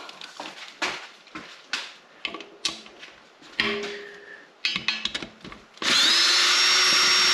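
A few clicks and knocks as a long drill extension is set into a split-rim wheel's assembly bolt. Then, about six seconds in, a cordless drill runs steadily with a high whine that rises briefly as it spins up, undoing a BBS LM wheel bolt.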